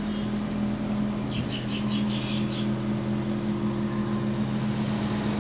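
Daihatsu Esse's 660cc three-cylinder engine idling steadily, heard from inside the cabin as an even hum.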